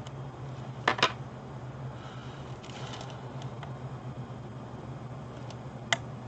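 Small sharp clicks and taps from hand-soldering an LED onto a grow-light circuit board: a quick double click about a second in, a brief faint hiss and a few light ticks in the middle, and another click near the end, over a steady low hum.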